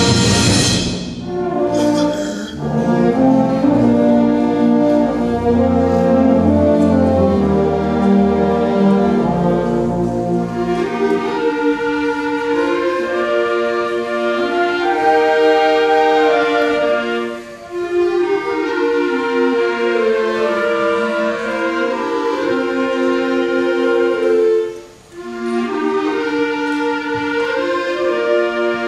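Student concert band playing a piece. About eleven seconds in the deep low parts drop out and the higher woodwinds, flutes among them, carry the melody while the trumpets rest, with two short breaks between phrases.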